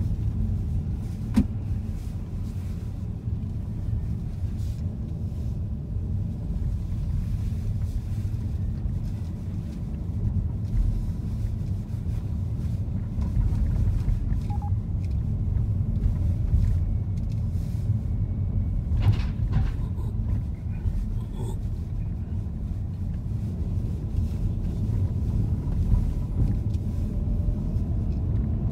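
A car driving, heard from inside: a steady low rumble of engine and road, with a couple of brief clicks.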